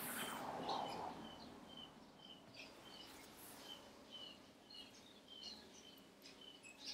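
Faint bird chirping: one short, high note repeated steadily about twice a second. A brief whoosh of noise in the first second is the loudest part.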